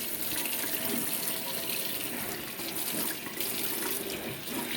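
Tap water running steadily into a sink while a stove burner grate is rinsed and wiped with a sponge.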